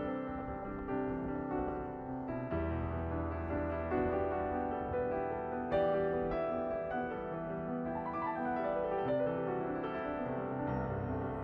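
Background music: a gentle piano piece playing sustained notes and chords.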